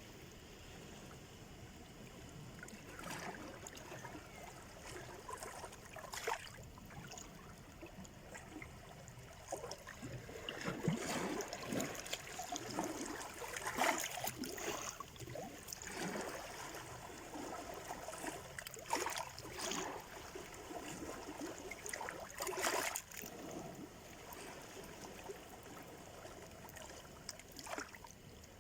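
Sea surf: small waves washing and splashing on the shore in irregular surges, louder through the middle of the stretch.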